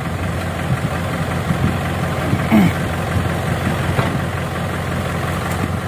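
Light truck's engine idling steadily.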